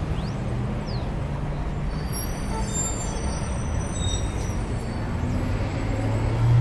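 Road traffic with a motor vehicle's engine running, its low hum swelling louder near the end as it comes closer.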